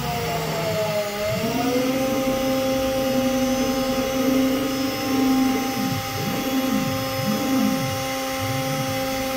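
Home-built CNC router running: a steady high whine from the spindle and drive motors, which dips briefly in pitch near the start and then holds. Lower motor tones slide up and down several times in the second half as the axes move.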